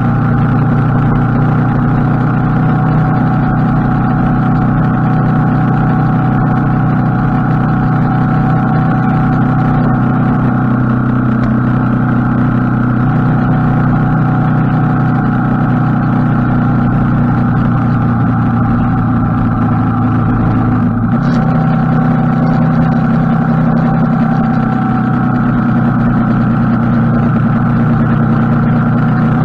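Kawasaki KLR250 single-cylinder four-stroke engine running at a steady cruising speed, heard from on board the motorcycle with road and wind noise beneath it. The engine note breaks briefly and shifts about two-thirds of the way through.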